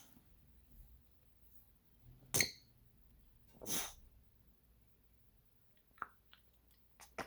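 African grey parrot making two short sneeze-like noises about a second apart, then a few faint clicks.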